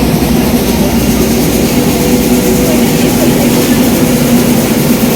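A vehicle's engine running steadily: a constant low hum under a dense rushing noise, with no change in speed.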